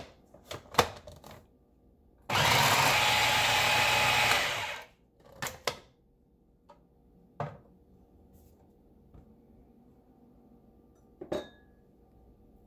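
Food processor motor running in one loud burst of about two and a half seconds, starting about two seconds in, puréeing chickpeas into hummus. Short plastic clicks and knocks come before it as the clear bowl lid is fitted, and again after it as the lid is taken off.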